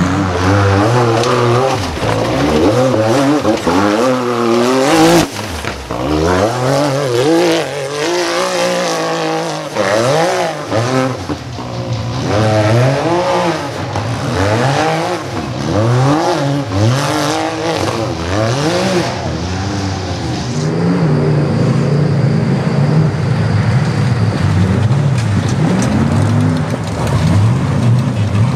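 Rock bouncer buggy engines revving hard as the buggies climb a rocky hill, the pitch swinging up and down over and over. The revving becomes steadier near the end.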